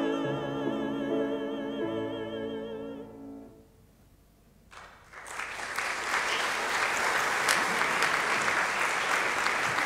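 A soprano and tenor hold the final note of an operatic duet with wide vibrato over piano chords, fading out about three and a half seconds in. After a second of quiet, an audience breaks into steady applause.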